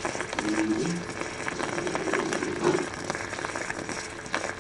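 Ariete electric moka pot gurgling and sputtering as the brewed coffee bubbles up into its open top chamber: a dense, irregular run of small pops and crackles, the sign of the brew coming through at the end of the cycle.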